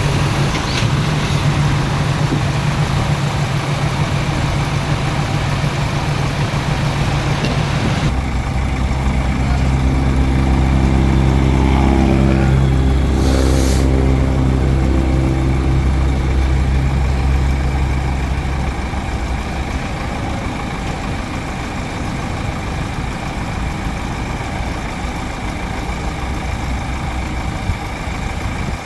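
Heavy diesel engines of earthmoving machinery running. About a third of the way in, a deeper, louder engine comes in abruptly, swells and then fades about two-thirds through, with a short hiss midway.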